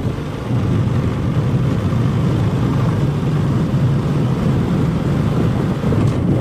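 A motor vehicle's engine running steadily, a low rumble with road or wind noise over it.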